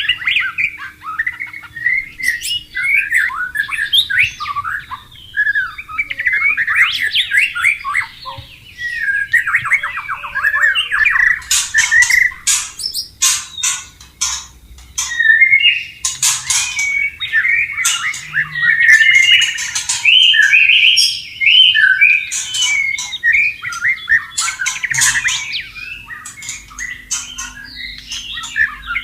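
White-rumped shama singing a continuous, varied song of quick warbled phrases mixed with sharp clicking notes.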